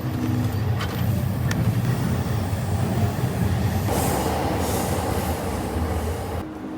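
Loud, steady low rumble with a rushing hiss that swells over the middle seconds, then cuts off abruptly near the end.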